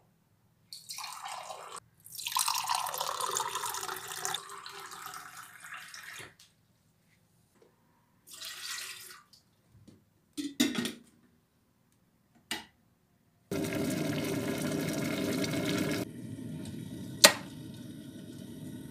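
Water running and being poured in several separate stretches, some loud, one steady for a couple of seconds. In between come a few short clicks and knocks, with one sharp knock, the loudest sound, near the end.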